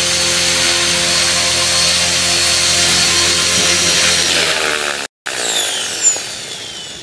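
Radio-controlled model helicopter's motor and rotor running with a steady, loud buzzing whine. It fades about four seconds in, and near the end a fainter whine falls in pitch as it winds down.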